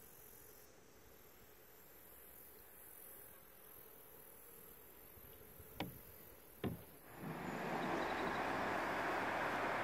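Faint background, then two sharp knocks of a wooden paddle against the canoe's hull, a little under a second apart. About seven seconds in, a loud, steady rush of river rapids sets in and holds.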